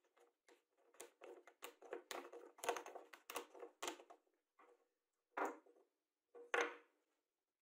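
A screw being driven by hand with a small screwdriver into a small hardwood block: a quick run of short creaks and clicks, then two louder scrapes near the end as the block is handled.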